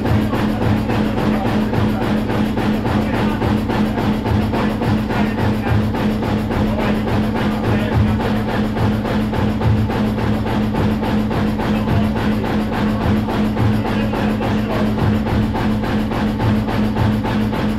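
Laurin & Klement 16 hp stationary engine running steadily with an even, drum-like beat and a steady low hum.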